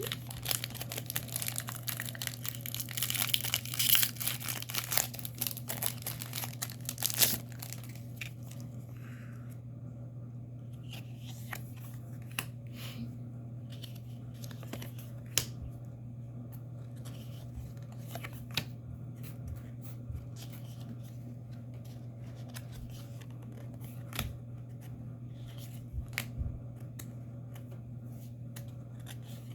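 Foil trading-card booster pack wrapper being torn open and crinkled for about seven seconds, then scattered light clicks and taps as the cards are handled. A steady low hum runs underneath.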